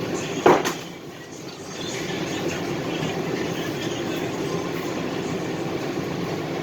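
Light rail train noise: a steady rumble with a short, loud sound about half a second in.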